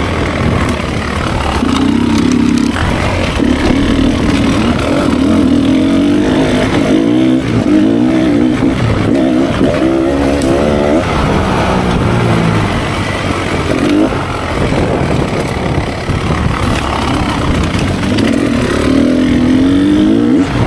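Beta 300 two-stroke dirt bike engine running through a Fresco silencer, its revs rising and falling over and over as it is ridden.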